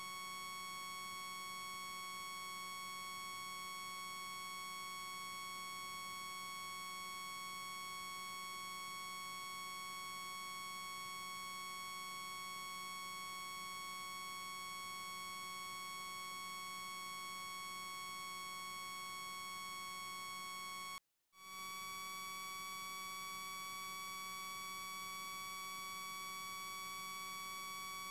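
Steady electronic whine: one unchanging buzzy tone, strongest around 1 kHz, that does not rise or fall and cuts out only for a moment about three-quarters of the way through. It is interference noise on the recording, not a sound from the pond or playground.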